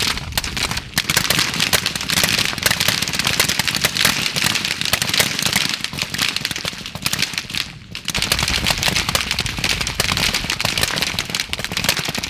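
A firing line of M4 and M27 5.56 mm rifles shooting at once: many rapid, overlapping shots forming a dense crackle, with a brief lull about eight seconds in.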